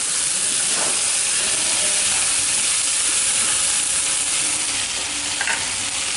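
Eel stir-frying in a hot pan, sizzling steadily as it is stirred.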